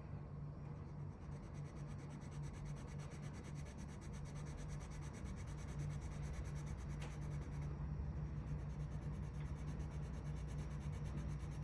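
Coloured pencil rubbing back and forth on white paper, a faint steady scratchy sound of colour being laid down in swatches.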